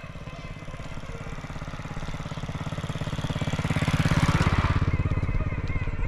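A small engine passing close by, its fast, even putter growing steadily louder to a peak about four seconds in.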